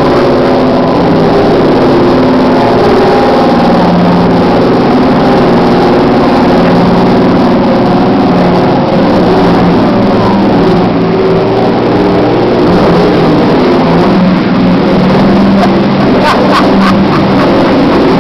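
Boat engine running steadily under way, its drone wavering slightly in pitch, with a few light clicks near the end.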